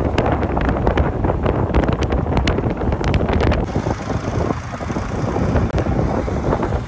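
Wind buffeting and crackling on the microphone of a moving motorcycle, over a steady low rumble of engine and road. The crackling eases off about halfway through.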